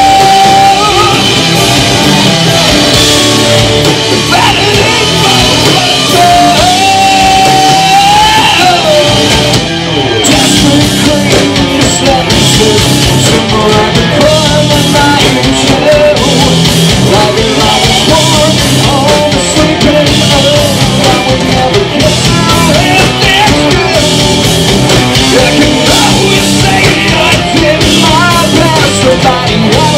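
Live rock band playing loud: distorted electric guitars, bass and drum kit under a singer's vocals. A long held note stands out at the start and again about seven seconds in, and the sound dips briefly about ten seconds in.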